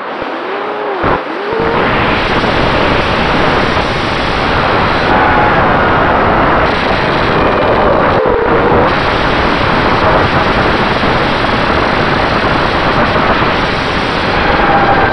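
FPV quadcopter's electric motors and propellers whining, their pitch sweeping up and down with throttle, under heavy wind rush on the onboard camera's microphone. The sound grows louder about a second and a half in.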